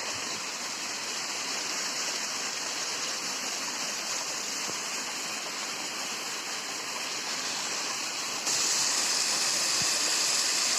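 Hillside waterfall rushing steadily up close, a constant hiss of falling water. It turns suddenly louder and brighter about eight and a half seconds in.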